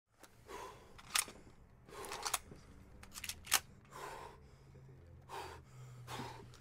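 A man breathing heavily and tensely, one breath every second or two, with a few short sharp clicks in between, over a faint low hum.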